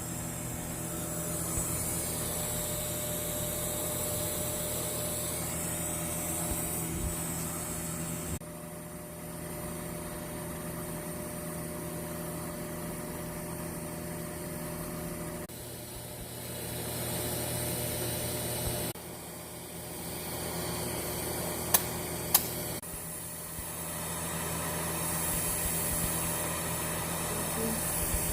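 Automatic welding equipment running: a steady electrical hum with a high hiss, changing abruptly several times, with two sharp clicks a little past the three-quarter mark.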